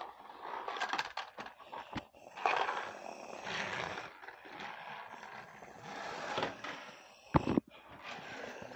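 Plastic toys being handled and scraped about, with rustling and scraping, scattered clicks, and one sharp knock about seven and a half seconds in.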